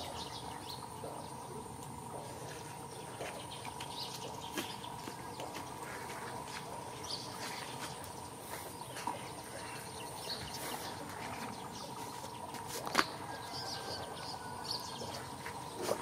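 Rural outdoor ambience: scattered short bird chirps over a steady high insect drone, with one sharp tap about thirteen seconds in.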